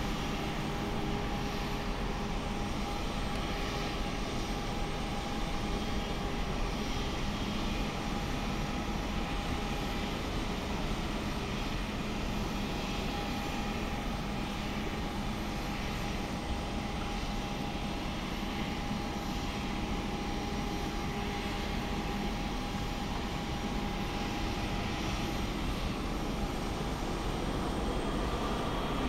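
Steady jet aircraft noise across an airport apron: a continuous hum with a held whine over it, swelling a little near the end.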